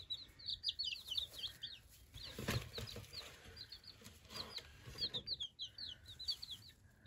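Baby chicks peeping: rapid runs of short, high-pitched cheeps. One soft knock about two and a half seconds in.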